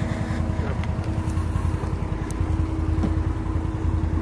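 Side-by-side UTV engine idling steadily: an even low rumble with a constant hum over it.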